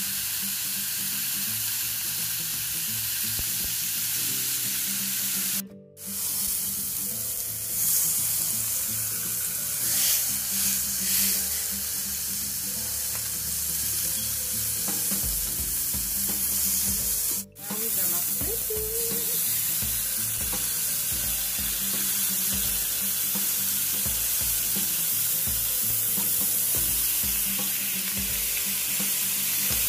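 T-bone steaks sizzling on a hot indoor grill plate: a steady frying hiss that cuts out briefly twice.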